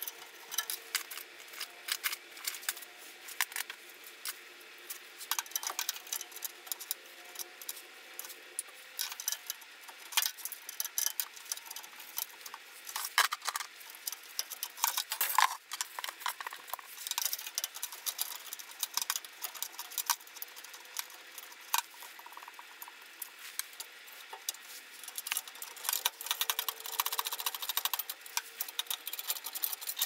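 Irregular clicks, taps and light metallic rattles of hands and tools working sheet-metal furnace parts and screws, as a panel and the burner shield of a gas furnace are taken off.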